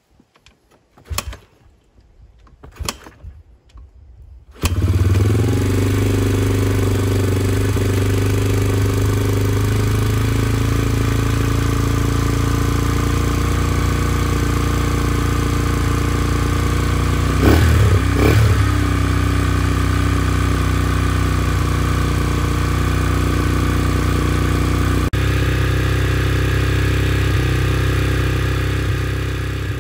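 A 2015 Yamaha TT-R125's single-cylinder four-stroke engine starts after a few knocks about four and a half seconds in, then idles steadily. Around the middle it is briefly revved twice, then settles back to idle.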